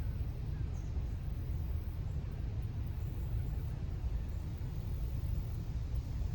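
Steady low rumble with no distinct events in it.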